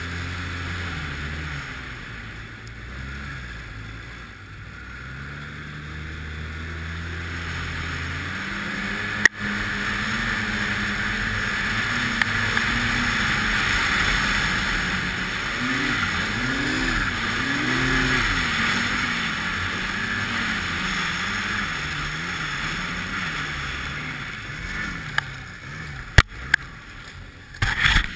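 Arctic Cat snowmobile engine running under throttle, low and steady at first, then louder and higher from about nine seconds in with the rush of the track through snow, its pitch swelling up and down several times as the throttle is worked. A sharp knock about nine seconds in and a few more near the end.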